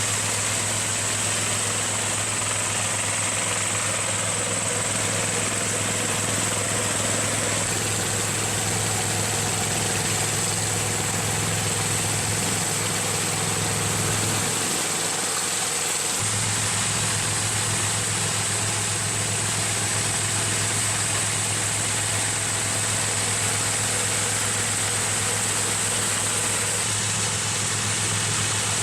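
Half-feeding rice combine harvester running steadily, its engine humming with machinery noise over it. The low hum drops away for a moment about halfway through.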